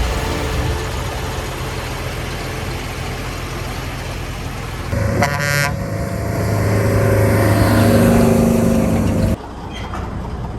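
Heavy farm machinery engine running, with a short horn toot about five seconds in; the engine then grows louder with a rising note before cutting off suddenly near the end.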